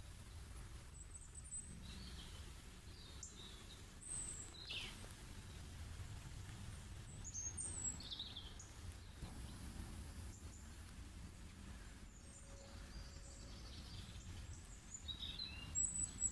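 Faint nature ambience: small birds chirping now and then, with a cluster of chirps near the end, over a low steady rumble.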